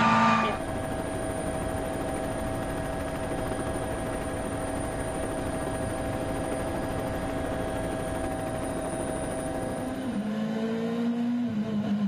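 Helicopter drone with a steady high turbine whine and no change in pitch for most of the stretch. About ten seconds in, a rally car's engine takes over, revving up and down.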